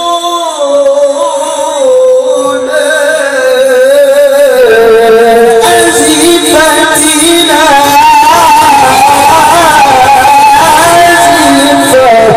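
A male qari reciting the Quran in the melodic mujawwad style into a microphone, one long drawn-out phrase with wavering ornaments on held notes. After about four seconds it grows louder and climbs to a higher register.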